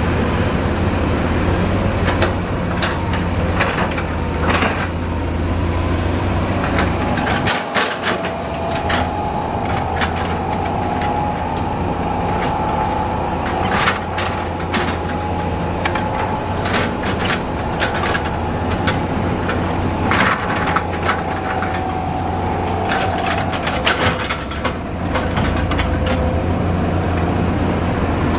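Heavy diesel construction machinery running steadily, with frequent sharp metal clanks and a steady high whine through the middle.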